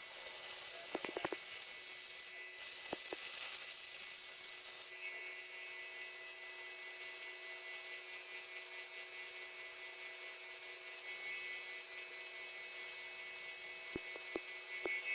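CNC milling machine running, a steady high spindle whine with cutting noise. The tone shifts about five seconds in, and a few faint clicks sound near the start and near the end.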